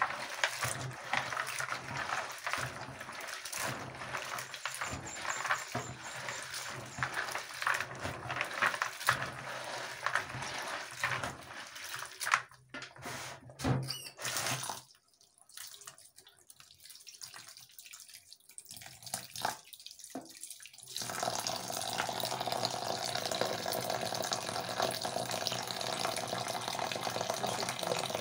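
Hands scrubbing and squeezing wet beans in a bowl of water, with irregular sloshing and squelching strokes that rub the skins off the beans. After a quieter stretch about two thirds of the way in, water runs steadily into the bowl to float off the loosened skins.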